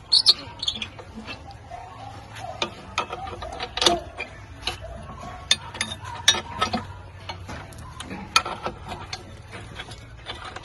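Irregular metallic clicks and clinks of nuts, bolts and a spanner as a hand pump's head is bolted back on, with a few sharper knocks.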